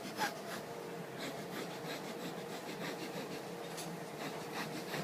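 Faint sniffling noises: short, hissy sniffs at irregular intervals over a soft rubbing and scratching background.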